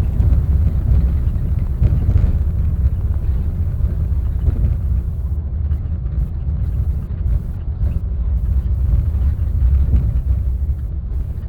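Cabin noise of a Boeing 777-300ER rolling along the ground: a steady, loud low rumble of its engines and landing gear, heard from inside the cabin.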